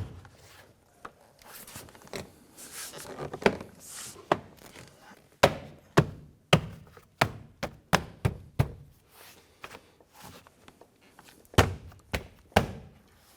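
Car door trim panel being pushed onto the door so its plastic snap clips seat in their holes: a string of irregular dull thunks and snaps as each clip is pressed home, with a short pause before a last few near the end.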